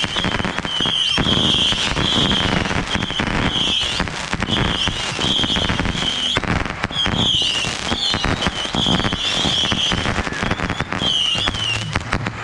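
A 200-shot Super Saturn missile battery firing rapid volleys of small bottle rockets. Short high whistles follow one another over a continuous crackle of pops and bangs.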